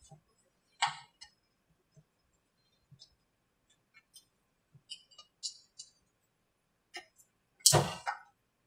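Fiberglass molds being worked apart during demolding: scattered light clicks and taps, a sharp knock about a second in, and a louder quick cluster of knocks near the end.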